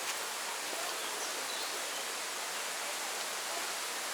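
Steady rushing of water from a waterfall and stream, an even hiss with no breaks.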